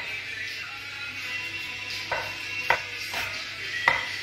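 Kitchen knife cutting button mushrooms on a wooden cutting board, the blade knocking sharply on the board three times, about two, two and a half and four seconds in, over steady background music.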